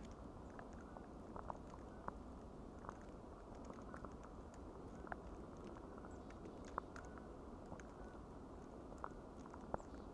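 Faint outdoor ambience: a steady low hiss with scattered soft ticks, irregularly spaced. The owl does not call.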